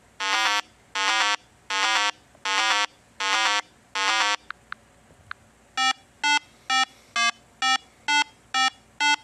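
Synthetic electronic beeps at a steady pitch: six half-second buzzy beeps, about one and a third a second, then three faint clicks, then from about six seconds in a quicker, very regular run of shorter beeps, a little over two a second.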